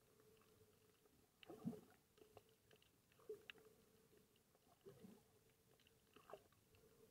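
Near silence of an underwater recording: a faint steady hum with scattered small clicks and four soft thumps, the loudest about a second and a half in.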